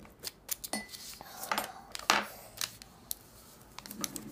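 Square sheet of origami paper being folded and pressed flat against a wooden tabletop: a run of crisp, irregular paper crackles and light taps, the loudest a little past halfway.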